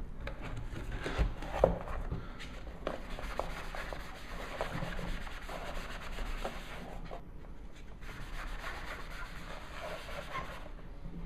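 Cardboard being folded and handled, with a few light knocks, then a Magic Eraser melamine foam sponge scrubbed back and forth over a cardboard and paper box. The scrubbing makes a steady rubbing noise, pauses briefly midway and stops shortly before the end.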